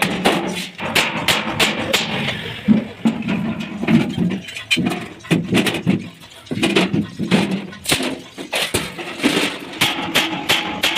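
Repeated hammer blows on sheet metal, irregular, several a second.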